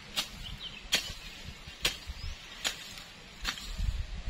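A series of five sharp clicks or snaps, roughly one every second, over faint outdoor background, with a low rumble near the end.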